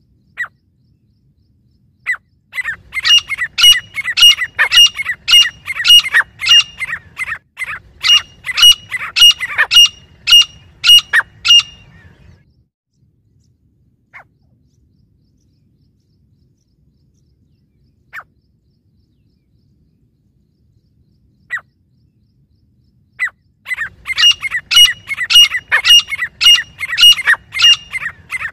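Grey francolins calling: a long bout of loud, rapidly repeated ringing notes, two or three a second, then a lull broken by a few single notes, and a second bout starting near the end.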